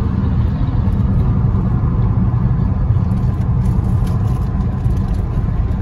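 Steady low rumble of a car driving at highway speed, its engine and tyres on the road heard from inside the cabin.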